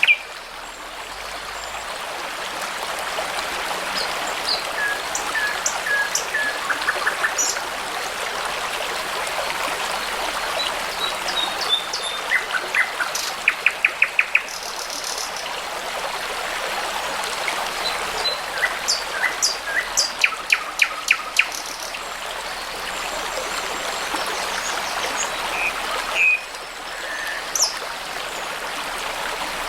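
A brook babbling steadily, with songbirds singing and chirping over it in short phrases, including two quick runs of rapidly repeated notes.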